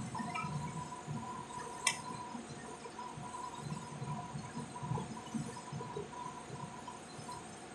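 Steady hum of printing-plant machinery, with a throbbing low rumble under two steady tones. A single sharp click about two seconds in.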